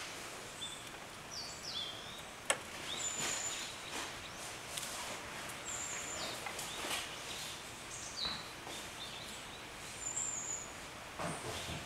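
Small songbirds giving short, thin, high-pitched call notes, some falling slightly in pitch, scattered through, over a steady outdoor hiss, with a sharp click about two and a half seconds in.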